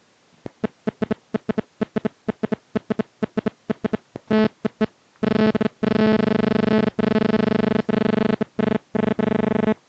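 A loud buzzing tone at a fixed pitch, sounded in many rapid short beeps for about five seconds, then held in long blasts broken by brief gaps.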